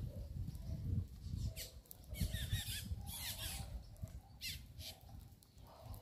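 A flock of small seed-eating birds at a feeder, giving short high chirps and calls, with a wavering call about two seconds in and a few sharp chirps near the middle.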